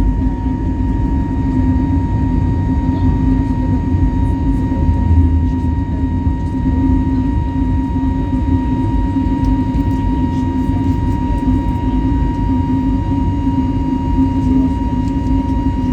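Steady cabin noise of an Airbus A320neo with CFM LEAP-1A turbofans, heard from inside the passenger cabin during the departure: a constant engine and airflow rumble with a steady hum and a thin high tone running through it.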